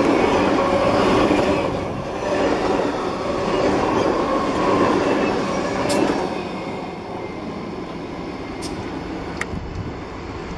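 Passenger cars of a Norfolk Southern office car train rolling past, their wheels clattering and rumbling over the rails. The sound fades after about six seconds as the rear of the train moves away.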